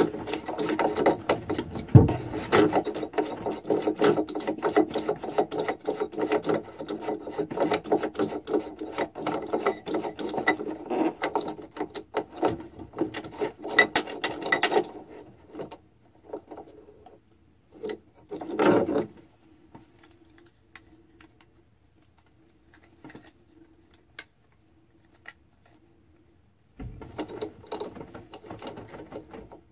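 Plastic threaded cap nut of a paddlewheel speed-sensor through-hull housing being turned by hand, a dense rasping of plastic threads and fingers rubbing on the ribbed nut. It goes on for about fifteen seconds, stops, and starts again briefly near the end.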